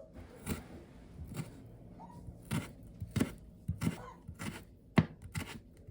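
Irregular knocks and clicks of kitchen utensils during cooking, about ten sharp strikes spaced unevenly.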